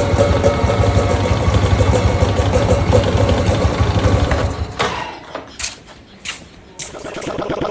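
Rough engine-like idling rumble that cuts out about four and a half seconds in, followed by a few sharp knocks before the rumble builds again near the end.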